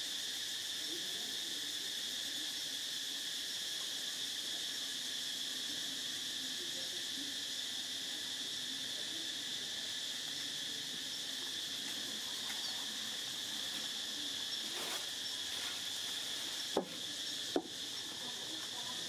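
A steady outdoor insect chorus of crickets or cicadas: a constant high-pitched drone made of several shrill tones that never let up. Near the end come two sharp clicks, under a second apart.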